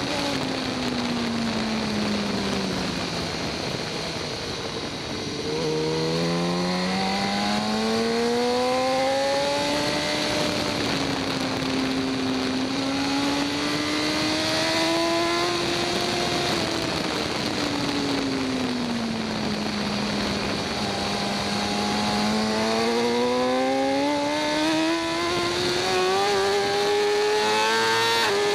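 2014 BMW S1000RR's inline-four engine at racing speed, heard from the onboard camera. The engine note drops for the first five seconds as the bike slows, then climbs, dips, climbs again and falls back, rising once more toward the end as the rider goes on and off the throttle. Under it runs a steady rush of wind.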